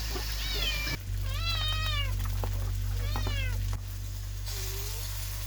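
Kitten meowing repeatedly: three drawn-out, bending meows, then a shorter, lower one near the end.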